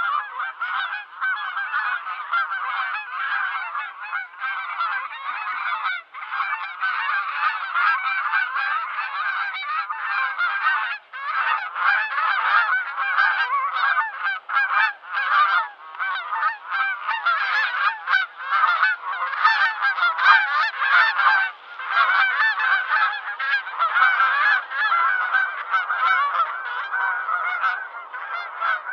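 A flock of geese honking continuously, many calls overlapping.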